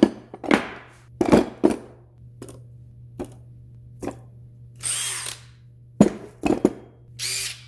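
Metal tools being set down one by one on a concrete floor, a string of clanks and knocks. A handheld power tool fitted with a wire brush is triggered briefly twice, once near the middle and once near the end.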